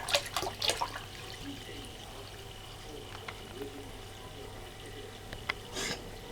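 A cat lapping water, several quick wet laps at about three a second in the first second, then a faint steady trickle of water with a click and a short burst near the end.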